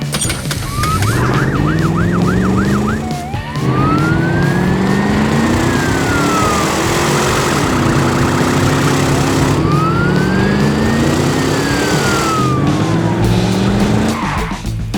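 Emergency vehicle siren sound effect: a fast warbling yelp for about two and a half seconds, then a slow wail that rises and falls, twice. Underneath, an engine revs up in rising steps over a noisy rumble.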